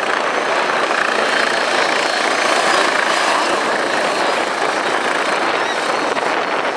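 Steady, loud rushing drone of an aircraft in flight.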